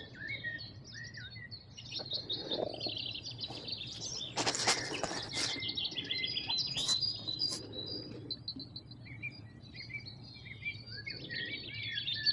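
Songbirds chirping and trilling around the river, several calls overlapping. About four and a half seconds in, a loud burst of rapid clicking lasts about a second.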